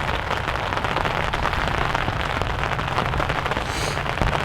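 Steady rain falling, with many close individual drop hits.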